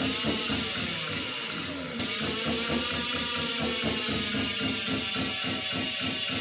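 Ola S1X Plus electric scooter's motor whining, its pitch rising and falling, over a fast run of clicking and rattling: the motor fault the owner is complaining of. A steady hiss joins about two seconds in.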